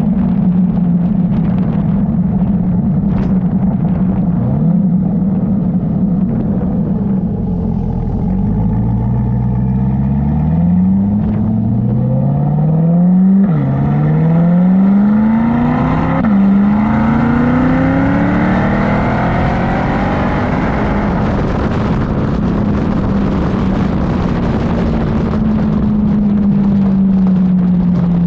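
Chevrolet Corvette C8 Stingray's 6.2-litre V8 through a Corsa Xtreme exhaust. It runs steadily, then from about eight seconds in accelerates hard, its pitch climbing through two quick upshifts, then eases off into a steady drone that slowly falls in pitch.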